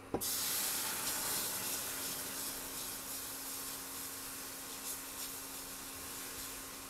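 Chicken stock poured into a hot oil-and-flour roux in a stainless steel pan: a sudden loud sizzling hiss that slowly dies down as the pan is stirred.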